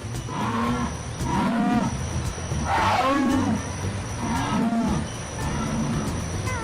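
Jaguar calling in its hoarse 'sawing' roar: a series of deep grunts repeated about once a second, loudest about three seconds in.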